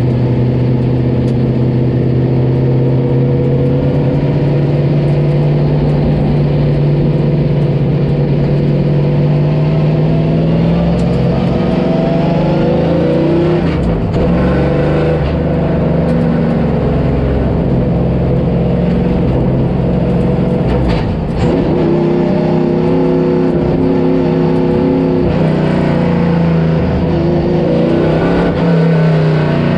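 A vehicle engine running loud and steady under load. Its pitch climbs slowly and then drops sharply three times, like gear changes.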